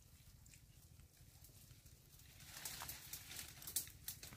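Faint scraping and clicking of hands digging in wet mud among mangrove roots, starting about two seconds in, with one sharper tick near the end.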